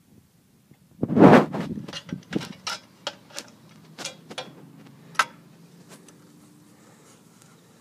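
A thud about a second in, then a run of sharp metallic clicks and knocks as a gas burner is handled and pushed into the stainless steel burner chamber of a hot-air (Stirling) engine.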